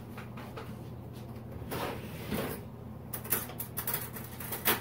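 Light scrapes and clicks of a plastic measuring scoop against a canister of gelatin powder as the powder is scooped and levelled off by hand, with a sharper click near the end, over a faint steady hum.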